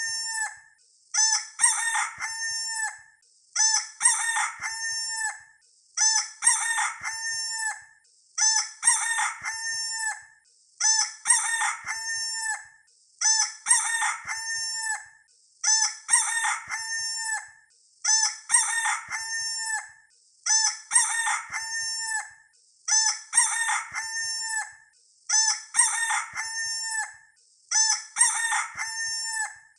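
Rooster crowing, the same recorded cock-a-doodle-doo looped over and over, about one crow every two and a half seconds with a short gap between each.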